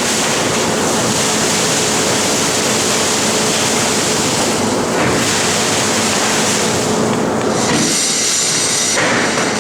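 Mackerel filleting machine running: a loud, steady noise with a faint constant hum under it, its texture shifting briefly near the end.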